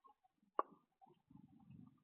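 Small birds at a nut feeder: a sharp tap a little after the start, probably a beak striking the feeder, then low scratching and scuffling from feet and wings through the second half.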